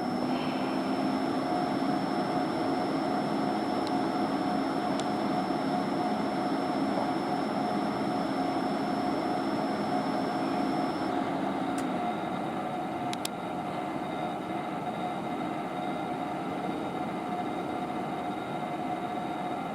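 VP-1000's cooling fan running with a steady whirring rush and a constant mid-pitched tone. About two-thirds of the way through, a high thin whine and a low hum cut out, and the sound gets slightly quieter.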